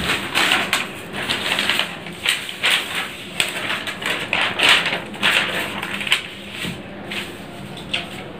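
Newspaper rustling and crackling in short, irregular strokes as the sheets are lifted, turned and smoothed flat by hand.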